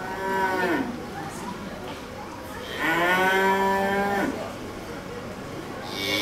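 Cow mooing three times: a short moo at the start, a longer one of about a second and a half in the middle, and a third beginning near the end, each dropping in pitch as it trails off.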